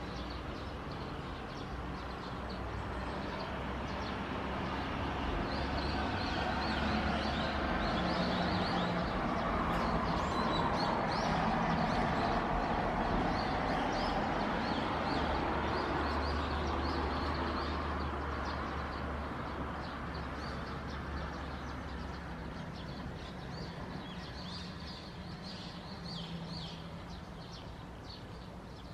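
Turbofan engines of an Embraer regional jet at takeoff power, heard from afar during the takeoff roll and lift-off: a broad rushing noise that swells to its loudest around the middle and then slowly fades. Birds chirp faintly now and then.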